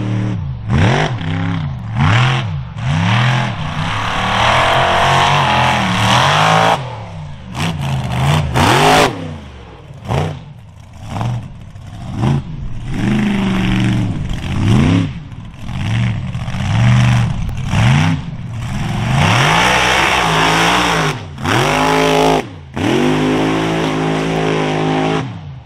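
Off-road mud truck's engine revving hard, its pitch climbing and dropping again and again as the driver works the throttle through the course, with a few brief breaks in the sound.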